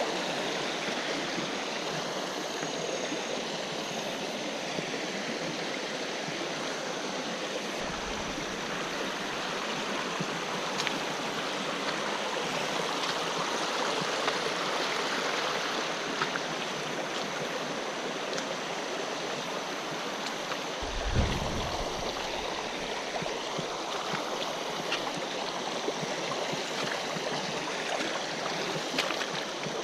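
Creek water rushing steadily over rocky rapids. A low thump comes about two-thirds of the way through, with a fainter one earlier.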